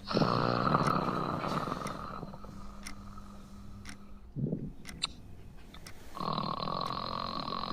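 A man snoring in his sleep: a long, loud, rattling snore at the start, a short snort about four and a half seconds in, and another long snore starting near the end.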